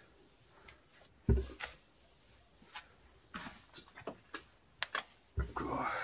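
Someone clambering across attic boards strewn with sawdust and debris: a heavy thump about a second in, scattered light knocks and clicks, and a louder scuffing burst near the end.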